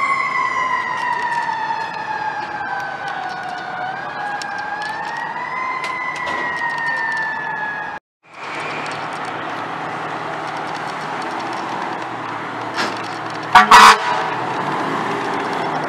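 A fire truck's siren winding down, its pitch falling slowly with a brief rise partway, then stopping abruptly about eight seconds in. After that, fire-truck engines idle, and a loud double horn blast sounds near the end.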